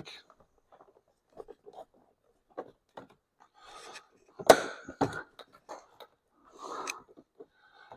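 Plastic door trim being pried at: scattered small clicks, scrapes and rubbing of a pry tool against the window-switch panel, with one sharp click about four and a half seconds in, as the panel's clips resist.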